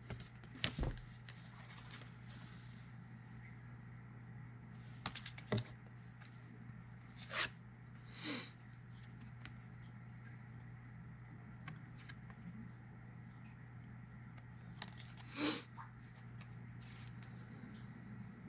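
Brief scrapes and rustles of card and paper packaging being handled, a few at a time, over a steady low hum.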